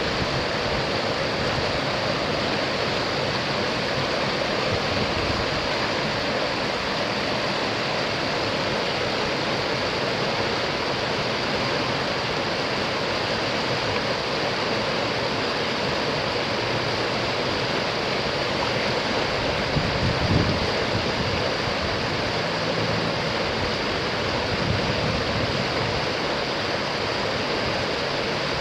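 River water rushing over a small rapid between boulders: a steady, even whitewater rush, with one brief low bump about twenty seconds in.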